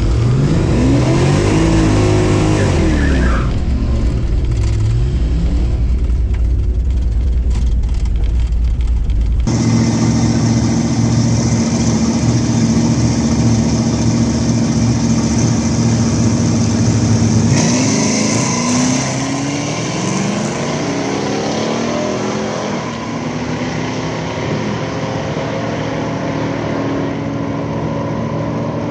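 Drag-race car engines revving and accelerating, the pitch climbing and dropping through gear changes. Two abrupt cuts, about a third and two-thirds of the way in, split it into separate stretches, the middle one a steadier engine note.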